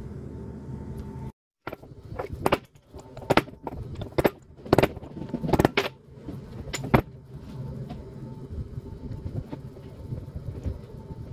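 A series of sharp metallic knocks and clinks, about a dozen over some five seconds, over a steady low hum.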